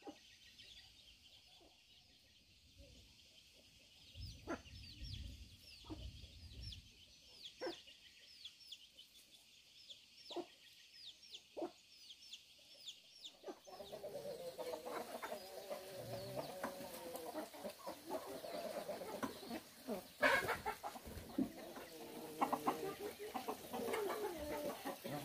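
Chickens clucking and calling, with a few sharp knocks in the first half. The sound turns louder and busier about halfway through.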